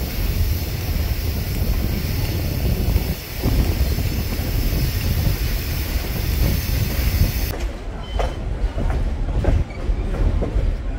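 Passenger train running, heard from an open-air car: a steady rumble of wheels on rail with a hiss of wind. The hiss cuts off suddenly about seven seconds in, leaving the rumble with scattered clicks and knocks from the wheels.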